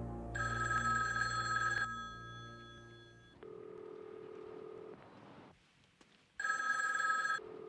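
Push-button desk telephone's bell ringing twice, each ring about a second and a half long. Between the rings comes a steady low ringback tone, as heard by the caller through the handset. A low music drone fades out about three seconds in.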